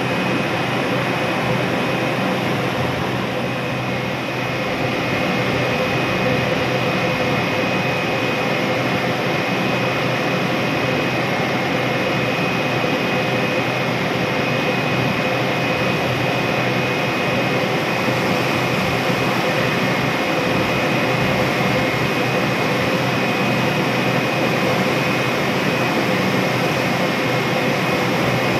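Passenger ship's engines and on-board machinery running steadily: a loud, even drone with a thin, high steady whine over it.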